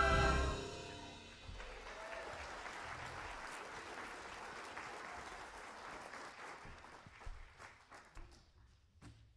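A choir's final held chord cuts off in the first half-second, then an audience applauds for several seconds, thinning to scattered claps near the end.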